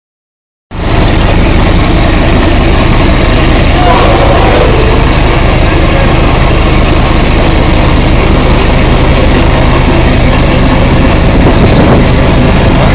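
Rooikat armoured car's V10 diesel engine idling steadily and loudly, cutting in abruptly a moment in.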